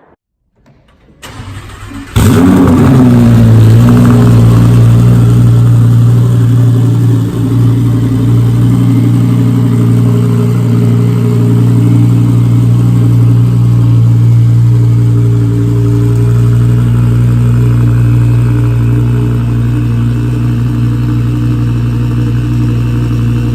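Twin-turbocharged 2015 Lamborghini Huracán's V10 being started: a brief crank, then it catches about two seconds in with a flare of revs that falls away into a steady, loud idle.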